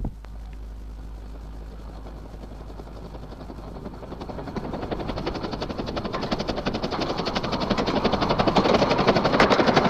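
Green Goddess, a 15-inch-gauge steam locomotive, chuffing at speed, its rapid exhaust beats growing louder as it approaches.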